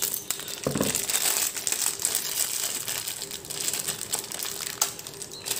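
Thin clear plastic packaging crinkling and rustling as a bag is cut open with scissors and plastic clay plunger cutters are pulled out of it, with a dull knock a little under a second in.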